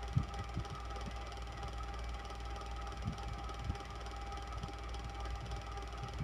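Electric fan running steadily, its motor humming with a couple of steady tones. A few faint, irregular low knocks or ticks sound over the hum, most noticeably near the start and about three seconds in.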